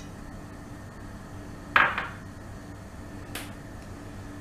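One sharp clink of kitchenware nearly two seconds in, and a lighter tick about a second and a half later, over a faint steady hum.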